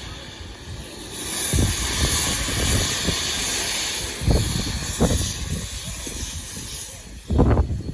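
Steady hiss of escaping steam from the restored steam locomotive No. 20, with low rumbling gusts about a second and a half in, around four seconds in and near the end.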